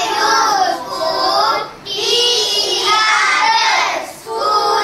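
Young children's voices chanting a word aloud in a drawn-out, sing-song way, in stretches of about a second each.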